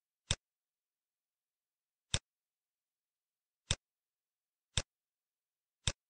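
Five sharp computer mouse clicks at uneven intervals, with dead silence between them.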